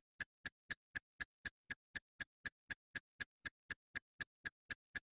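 Clock ticking: sharp, evenly spaced ticks at about four a second.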